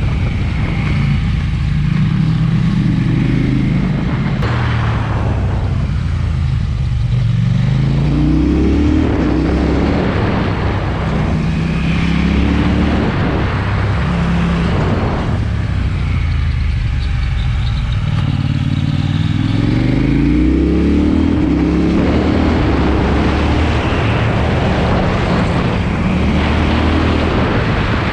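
KTM Duke 790's parallel-twin engine breathing through an SC-Project exhaust, pulling hard twice with its pitch climbing through a run of gear changes and easing off between the pulls.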